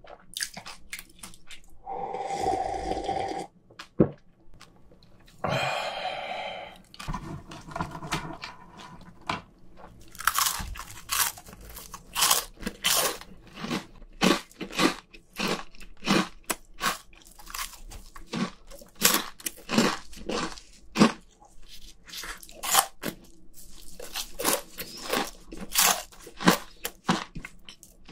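Swallowing beer in the first few seconds, then close-miked crunching and chewing of spicy Cheetos corn puffs, with sharp crunches coming several times a second from about ten seconds in.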